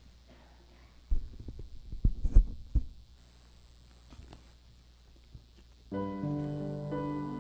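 Several low thumps and knocks of a book and papers being handled at a miked pulpit, for about two seconds starting a second in. Near the end a keyboard starts playing sustained chords, the introduction to a hymn.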